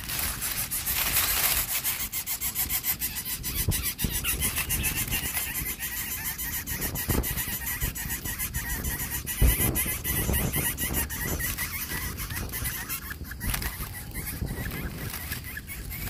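Lesser coucal chicks begging in their grass nest: a fast, continuous rasping and ticking, with a few low thumps as they move.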